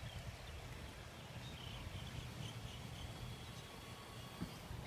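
Faint outdoor ambience: a steady low rumble with a short run of faint, high chirps in the middle, and one small knock near the end.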